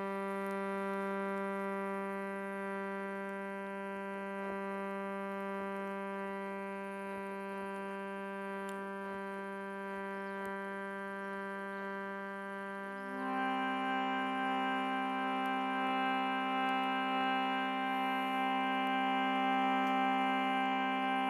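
Shruti box sounding a steady reed drone. About two-thirds of the way through, a second, slightly higher note joins and the drone grows louder.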